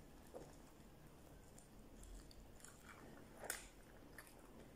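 Faint chewing of a mouthful of pizza, with a few soft mouth clicks; the loudest comes about three and a half seconds in.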